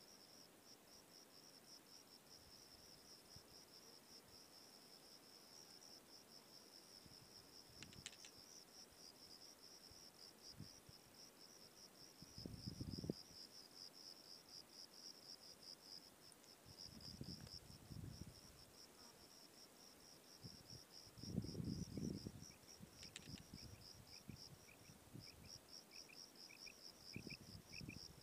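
Faint, steady, high-pitched insect trill made of very fast pulses, like a cricket singing in the field. A second, lower chirping joins in near the end. A few brief low rumbles come and go.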